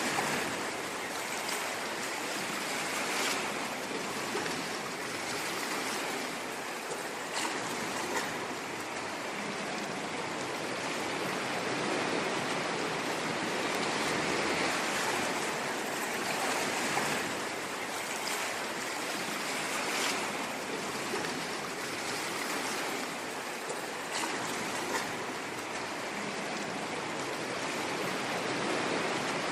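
Ocean waves washing in continuously: a steady hiss that swells and eases slowly, with a few brief fizzing crackles.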